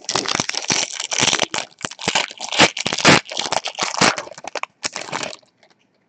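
Foil trading-card pack wrapper crinkling and crackling as it is torn open and handled, stopping about five seconds in.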